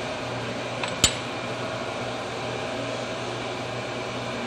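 A single sharp metal clink about a second in, with a fainter tap just before it, as metal is knocked against a steel vise. A steady background hum runs throughout.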